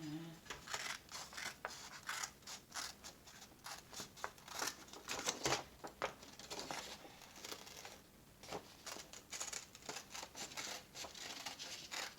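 Scissors cutting through folded paper: a long run of quick snips, with a brief pause about two-thirds of the way through before the cutting resumes.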